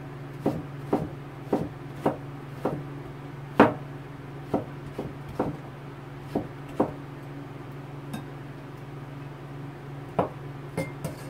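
Kitchen knife slicing peeled bottle gourd into strips on a plastic cutting board: sharp knocks of the blade on the board about two a second, a pause of a few seconds after the middle, then a few more cuts near the end. A low steady hum underneath.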